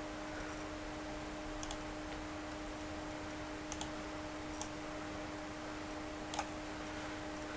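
Computer mouse clicking: two quick double clicks, then two single clicks, over a steady low hum.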